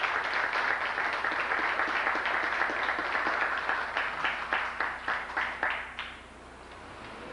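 Audience applauding by hand: dense clapping that thins into a few scattered claps and stops about six seconds in.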